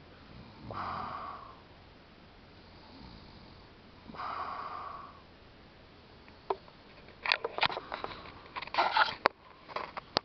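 Sleeping person snoring: two long, rasping breaths about three seconds apart. Over the last few seconds comes a run of sharp clicks and knocks.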